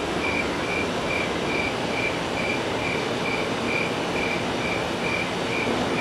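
Night ambience: a cricket chirping evenly, a little over twice a second, over a steady rushing noise bed.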